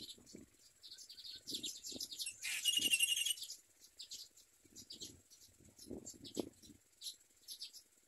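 Nestlings in the nest giving repeated short, high begging chirps, with a louder rapid burst of calls about two and a half seconds in. Soft low bumps come now and then beneath the chirps.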